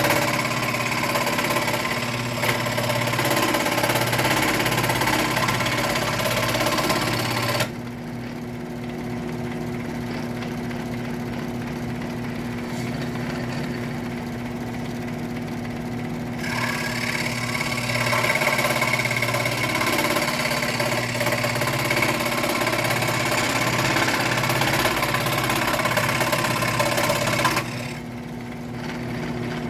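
WEN scroll saw running with a steady motor hum, its reciprocating blade cutting through thick wood in two long spells, about the first eight seconds and again from about the middle to near the end, with the saw humming on its own in between. The owner thinks the blade is struggling because the wood is too thick for it.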